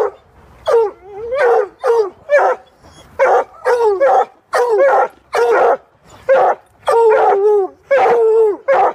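Coonhounds baying over and over, short barks and longer drawn-out bays about two a second, each falling in pitch: the treeing bay of hounds that have a squirrel cornered.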